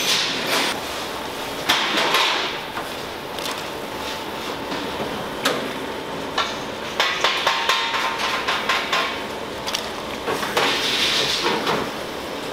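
Repeated knocks and scraping of a hand scraper and wooden paddle against a large aluminium stockpot, over a steady kitchen hiss. The knocks come irregularly, with a quick cluster about two-thirds of the way in.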